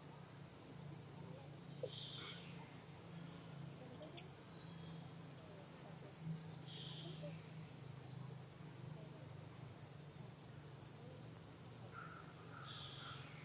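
Forest insects trilling: a steady high buzz with pulsing chirps above it, and a brief higher call about every five seconds, over a faint low hum.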